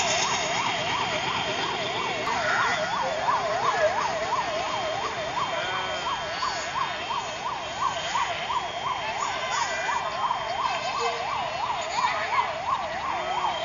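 An electronic siren in a rapid yelp, its pitch sweeping up and down about three times a second at an even level.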